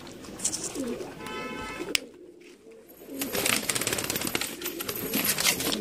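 Pigeons cooing, then from about three seconds in a quick flurry of wing flaps as a pigeon flutters its wings.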